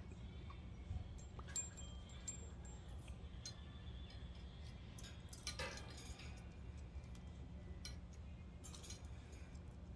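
Budgerigars in their cages giving faint, scattered chirps, along with small clicks and clinks, over a steady low hum.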